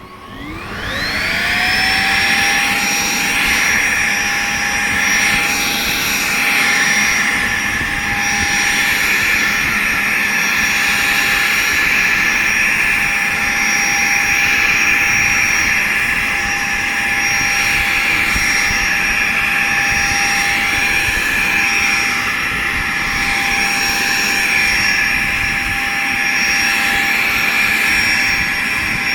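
Xiaomi Mijia dust mite vacuum cleaner switched on: its motor whines up to speed over about two seconds, then runs steadily with a high whine over the rush of suction.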